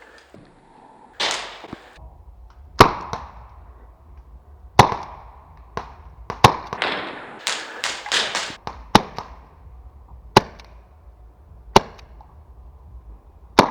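Paintball pistols firing single shots, about ten sharp pops spread a second or two apart, several in quicker succession around the middle.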